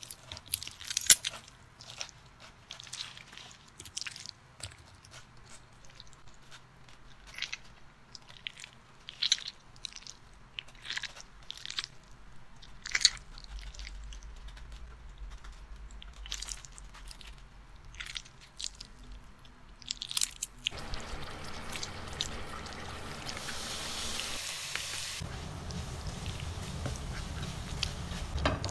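A knife cutting and prying the flesh out of a halved pineapple: a long run of irregular sharp crunching clicks and cracks. A little past two thirds of the way in this gives way to a steady sizzle of diced Chinese sausage frying in a wok, stirred with a spatula, growing louder toward the end.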